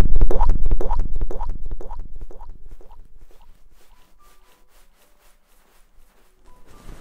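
A rapid run of sharp clicks close to the microphone, about five a second, loud at first and fading away to near silence about four seconds in.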